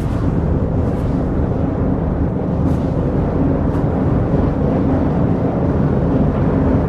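Loud, bass-heavy instrumental stage music with a few faint held notes, muddy and indistinct.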